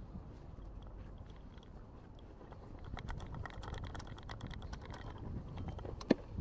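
City street ambience: a low steady rumble with many small scattered clicks that get busier in the second half, and one sharp click near the end.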